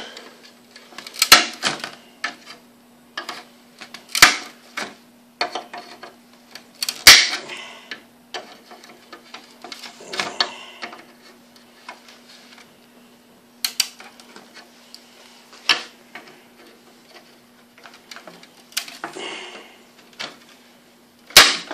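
Irregular sharp clicks and knocks from a plastic Jeep Grand Cherokee ZJ grille and a metal mesh insert being handled and pressed into place, more than a dozen spread out with pauses between, over a faint steady hum.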